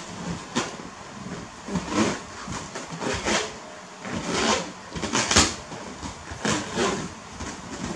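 Rubber balloons rubbing and thudding as a young monkey paws and pats them: a string of short squeaky rubs, about one every half second to second, the loudest about five seconds in.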